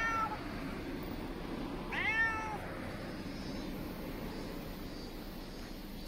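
Domestic cat meowing twice: short, high, arched calls, one right at the start and another about two seconds in, over steady background noise.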